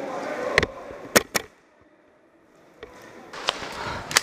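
Airsoft guns firing single shots: three sharp cracks in the first second and a half, then a few more near the end.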